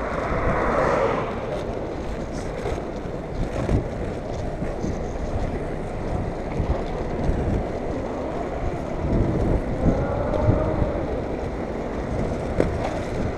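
Wind rushing over the microphone of a moving skater's camera, with the rumble of inline skate wheels rolling on asphalt and the sound of street traffic.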